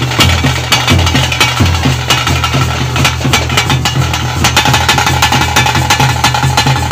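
Bhuta kola ritual music: fast, dense drumming that goes on without a break, with a steady high held note joining about halfway through.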